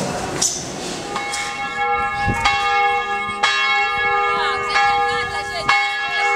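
Church bells rung from ropes, a peal of several bells. Irregular strikes come about once a second, starting about a second in, with the bells' tones ringing on between strikes.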